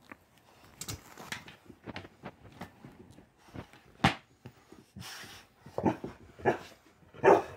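A dog making a string of short vocal sounds and breaths, the sharpest about four seconds in and another just before the end.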